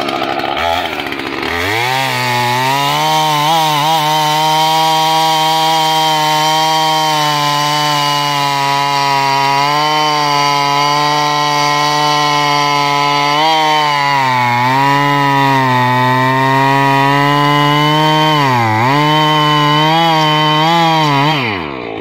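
Husqvarna two-stroke chainsaw revving up and cutting through a dry oak log at a steady high pitch. The pitch dips briefly a few times under the load, and the engine drops back just before the end.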